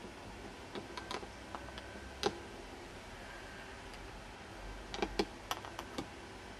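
Irregular sharp clicks and taps, about nine in all, the loudest a little over two seconds in and several close together near the end.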